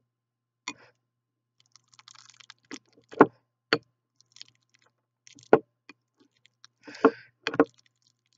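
Metal potato masher mashing avocado in a glass bowl, knocking against the glass in about seven sharp clinks at uneven intervals.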